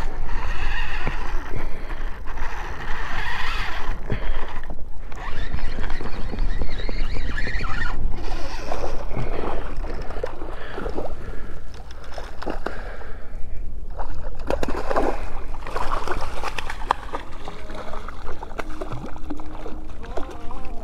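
Water splashing as a hooked redfish fights at the surface of shallow water, with wind noise rumbling on the microphone.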